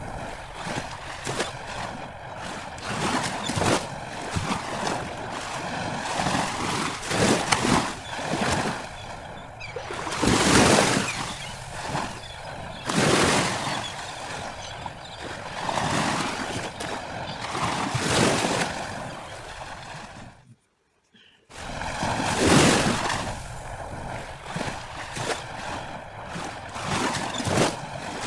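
Drawing tool scratching and swishing on paper in irregular strokes, as when colouring or shading, with a one-second break about two-thirds of the way through.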